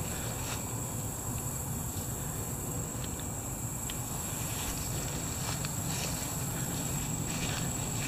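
Footsteps swishing through tall grass, over a steady high-pitched insect drone and a constant low rumble on the microphone.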